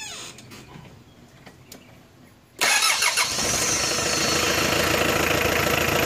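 4D56 diesel engine being started cold with its glow plugs disconnected: about two and a half seconds in it fires almost at once and settles straight into running steadily. The quick start is the sign of good compression and good fuel delivery.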